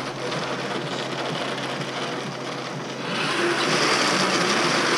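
Electric drive motors and gearboxes of a homemade RC car whirring steadily, the wheels spinning free off the ground. The whir gets louder about three seconds in as the motors speed up.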